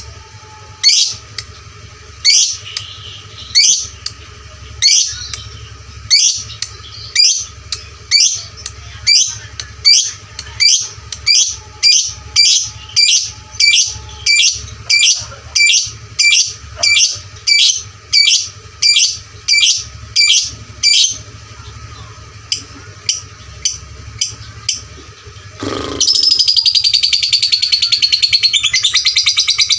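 Lovebird calling. It gives sharp, high, rising chirps, about one a second at first and speeding to about two a second, then stops. After a pause of a few seconds it breaks into a long, rapid, continuous chattering trill (the 'ngekek') that runs on to the end.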